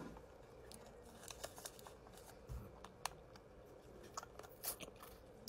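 Faint, scattered crunches and clicks of a Van Holten's Warheads extreme sour pickle being bitten and chewed.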